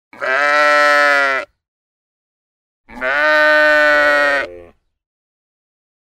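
Sheep bleating: two long baas with silence between them, the second a little longer than the first and trailing off at its end.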